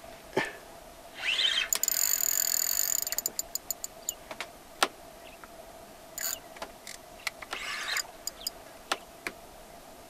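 Spinning reel's drag clicking rapidly as a hooked fish runs and pulls line off. It starts about a second in and slows to a stop, then comes again briefly near the end, with a few sharp single clicks in between.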